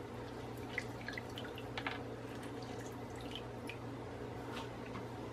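Orange half squeezed by hand, juice dripping in small, irregular drips and crackles over a steady low background hum.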